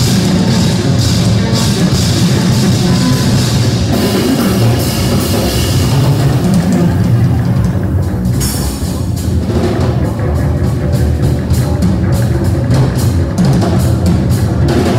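Live band music, loud and hard-driving: a drum kit with busy cymbal strokes in the second half, under a heavy amplified electric stringed instrument; the saxophone is not playing.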